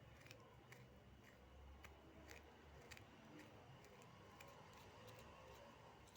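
Near silence broken by faint, irregular light clicks, about two a second, from a knife cutting food on a board.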